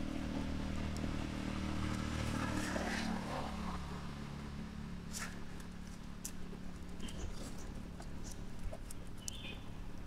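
A motor vehicle's engine hum passing by, its pitch dropping about three seconds in and then fading, with scattered light clicks and ticks.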